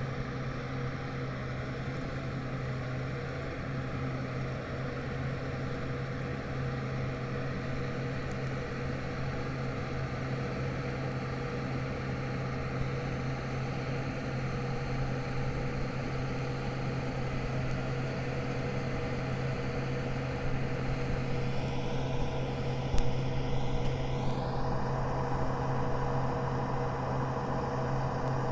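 Tractor engine and KMC peanut combine running at a steady drone. Roughly three-quarters of the way through, the pitch rises and the sound gets a little louder.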